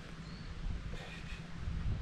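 Wind rumbling on the microphone, with a faint short meow from a cat about a second in.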